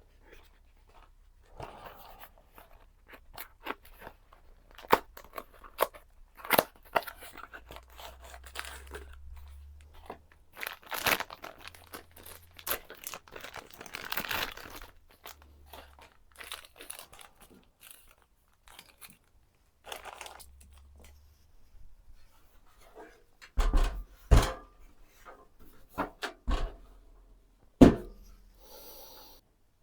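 Hands handling PC parts and their packaging: rustling and tearing sounds with scattered light clicks, then a few loud knocks near the end.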